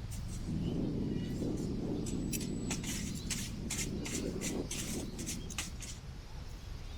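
Strong wind buffeting the microphone as a heavy low rumble, easing a little near the end, with irregular sharp high clicks and crackles over it.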